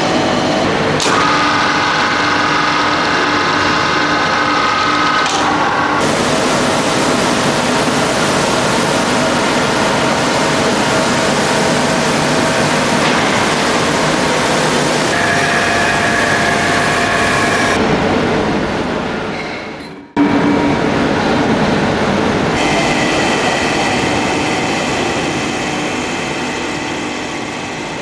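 Steady industrial machinery noise from a hydraulic railway-wheelset press and its workshop surroundings, carrying several steady hum tones that shift in pitch a few times. The sound drops out sharply about 20 seconds in, restarts abruptly, and then slowly fades.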